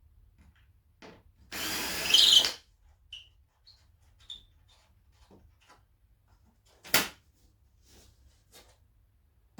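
A cordless drill-driver runs for about a second, backing screws out of the dashboard panelling. Small clicks and handling taps follow, with one sharp knock about seven seconds in.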